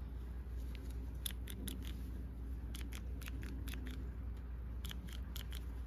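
DeWalt XRP cordless drill trigger switch being worked by hand, giving a series of small sharp clicks in irregular runs of two to four, over a steady low hum.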